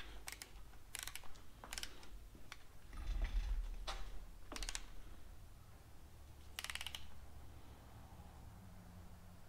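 Ratchet of a digital torque wrench clicking in short, irregular bursts as a cylinder head bolt is turned down, over a low hum.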